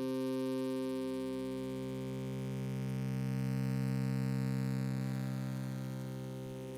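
Sustained synthesizer drone: several steady low tones held together as a chord, swelling slightly in the middle and easing off near the end.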